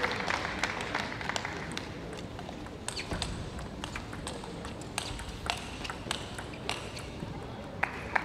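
A table tennis rally: a celluloid ball clicking off the rackets and the table about a dozen times at a quick, irregular pace. Crowd applause fades out at the start.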